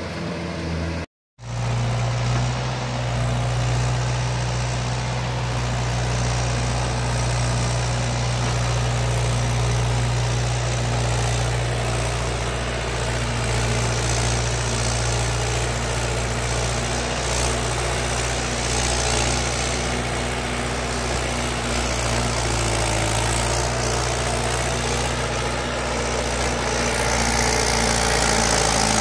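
Mahindra 575 DI tractor's four-cylinder diesel engine running steadily under heavy load while pulling a loaded trolley. The sound drops out briefly about a second in.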